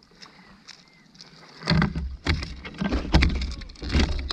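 Water splashing and knocking around a kayak, irregular and loud from about a second and a half in, after a quieter start with a few faint chirps.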